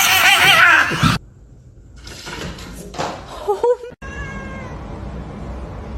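A cat yowling in a loud, long, wavering cry that cuts off abruptly about a second in. Quieter sound follows, with a short pitched cry a little past the middle.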